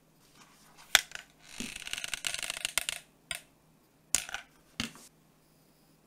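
Close crackly rustling of stiff green fabric being rolled and pinched between the fingers, with a sharp click about a second in and three shorter sharp crackles later on.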